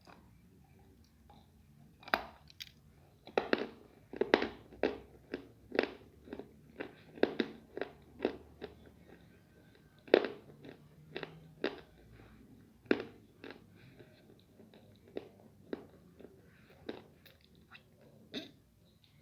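Close-miked ASMR eating of crunchy food: sharp bites and chewing crunches in an irregular series, often two or more a second, starting about two seconds in.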